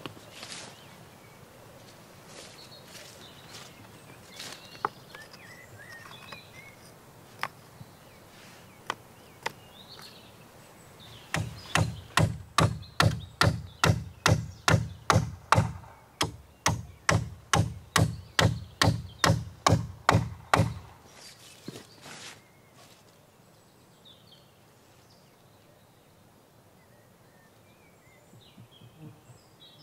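A hammer driving nails into the deck's wooden framing: a steady run of sharp blows, about three a second, lasting some ten seconds, after a few scattered knocks of wood being handled.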